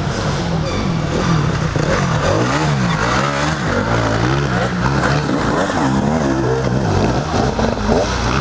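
Enduro motorcycle engine revving hard, its pitch swinging up and down again and again as the bike works through mud.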